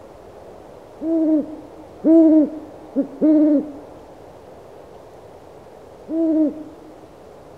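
Owl hooting: five short hoots in a loose run, each rising then falling in pitch, the third only a brief one, over a steady low hiss.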